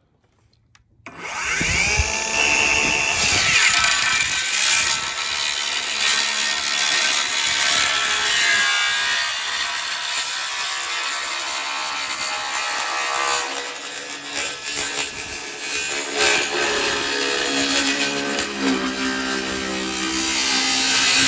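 Circular saw starting up about a second in with a rising whine, then cutting through weathered wooden boards.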